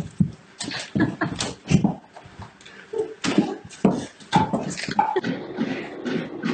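Scuffling and irregular knocks with short grunts and huffs as a large dog struggles against being pushed into a bathtub.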